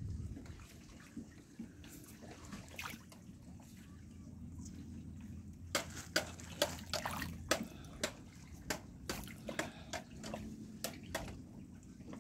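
Water splashing at a pond surface, with a run of about a dozen short, sharp splashes and drips in the second half over a low steady rumble.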